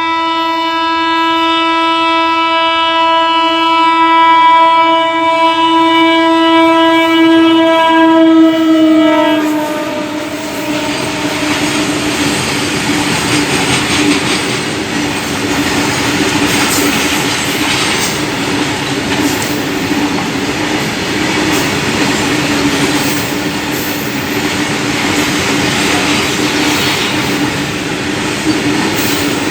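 Indian Railways WAG-7 electric locomotive's horn sounding one long, steady blast of about nine seconds. The horn cuts off, and the rattling clatter of the coal train's wagons rolling past takes over, with a steady low tone running underneath.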